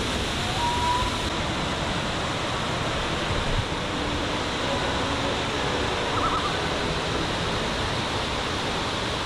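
Creek water cascading down a rocky chute of white water: a steady, even rush.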